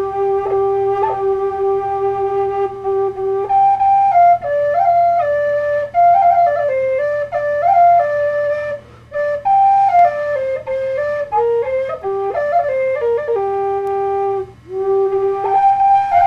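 Solo flute playing a slow melody, one line of long held notes and short stepping phrases with brief breaths between them, over a faint steady hum.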